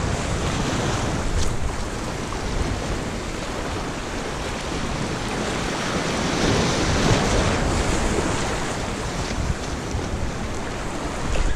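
Small waves washing and breaking over shoreline rocks, a steady rush that swells a little past the middle, with wind buffeting the microphone.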